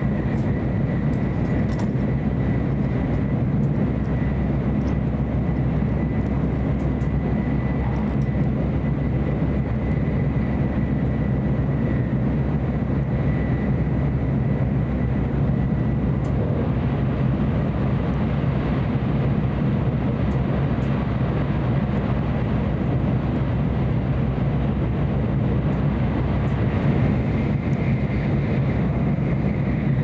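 Tokaido Shinkansen train running, heard from inside the passenger car: a steady low rumble with a faint high whine held at one pitch.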